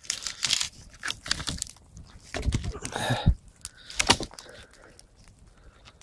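Wood campfire burning: irregular crackles and snaps, with a denser rustling burst about halfway through.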